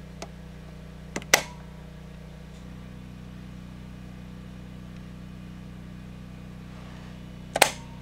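Two sharp clicks of the transfer switch's rocker switches being flipped, one about a second in and one near the end, each with a lighter click just before. Underneath is a steady low electrical hum that grows fuller a few seconds in.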